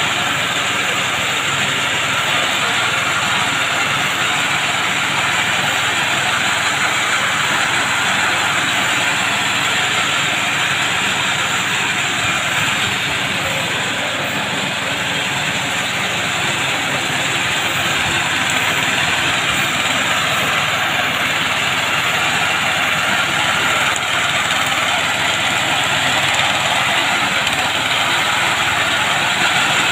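Engine of a BCS walk-behind self-propelled reaper running steadily under load while the machine cuts standing wheat.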